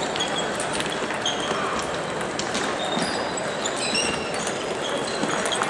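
Table tennis balls clicking off bats and tables at many tables at once, with frequent short high squeaks of shoes on the hall floor over a steady murmur of players and spectators.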